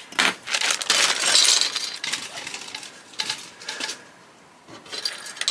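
Plastic parts bag crinkling as it is opened, with the model kit's plastic parts trees clicking and clattering against each other; it dies down about four seconds in, with one more click near the end.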